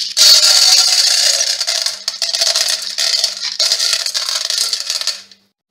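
Unpopped popcorn kernels poured from a bowl into a pot: a loud, dense rattle of kernels hitting the pan. It falters about two seconds in, breaks briefly about three and a half seconds in, then cuts off suddenly near the end.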